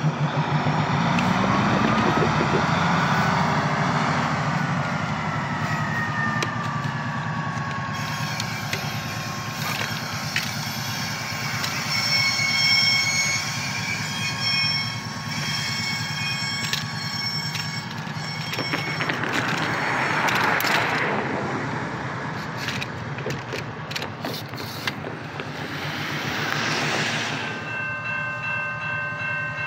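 Small diesel switcher locomotive running and moving off, with high steady squealing tones from the wheels on the rails. Near the end a locomotive air horn starts sounding a chord.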